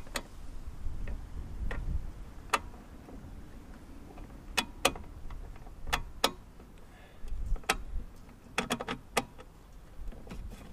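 Irregular sharp clicks and light taps, about a dozen, some in quick pairs, as small fasteners and parts are undone and lifted off the top of a two-stroke Flymo mower engine by hand.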